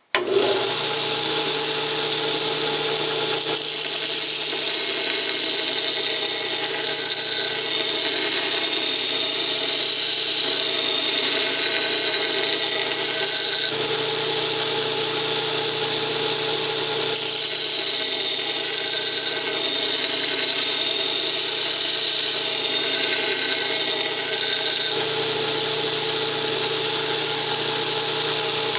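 A power tool running steadily, abrading the edge of a ruby-abrasive sharpening stone. It starts abruptly with a steady whir and a grinding hiss, and its tone shifts slightly a few times as the contact changes.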